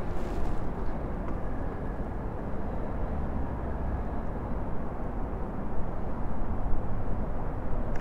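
Gusty wind blowing across the microphone, a steady low rumble with no distinct events.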